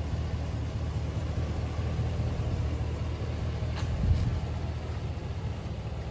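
Pickup truck engine idling steadily, a low even hum, with a brief knock about four seconds in.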